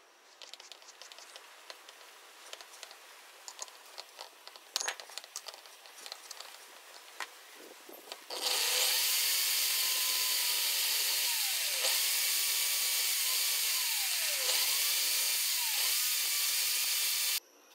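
Light handling clicks, then an electric drill starts and runs for about nine seconds, spinning a metal rod while a hacksaw blade is held against it to cut a groove for an E-type circlip. A loud high hiss of blade on metal over the motor's whine, which dips in pitch several times, then stops suddenly.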